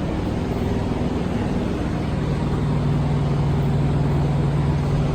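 Steady low drone of running machinery, with a low hum that grows stronger about halfway through.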